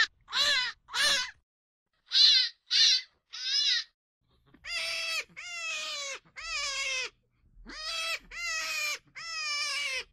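A series of high, piercing animal cries, each stopping abruptly: about six short cries in the first few seconds, then, after a pause, about six longer ones, each falling in pitch.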